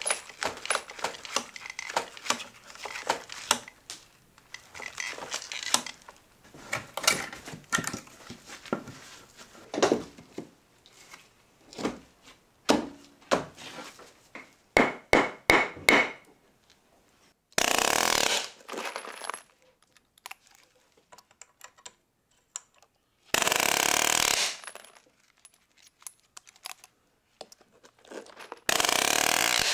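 Clicks and knocks of lumber and tools being handled, then three loud bursts of about a second each from a Bostitch pneumatic palm nailer driving nails through a hurricane strap into a joist.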